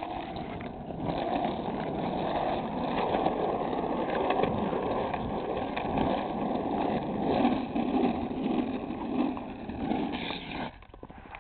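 Skateboard wheels rolling over rough asphalt, a steady rolling noise that stops abruptly near the end.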